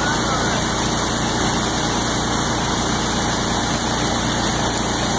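Waterfall pouring over rock into a pool, a loud, steady rush of water.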